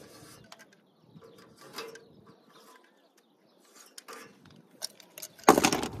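Light scraping strokes of a hand tool along the aluminium condenser fins of a Coleman Mach RV rooftop air conditioner as the bent fins are worked straight, a few separate strokes and small knocks, with a short loud rough rustle about five and a half seconds in.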